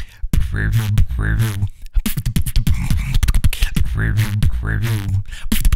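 Beatboxing: a fast beat of sharp vocal kicks and snares over a deep, sustained vocal bass, with short swooping vocal sounds mixed in. It starts abruptly out of silence.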